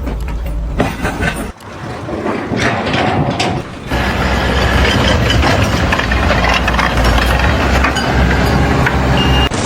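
A heavy vehicle's engine running, loud and steady with a deep hum and clatter over it, after two short abrupt breaks in the sound in the first four seconds.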